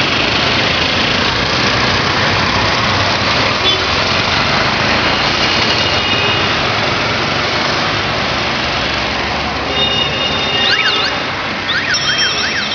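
Steady rushing street traffic noise heard from a moving vehicle, on a road busy with cycle rickshaws and auto-rickshaws. A few short, high warbling tones sound near the end.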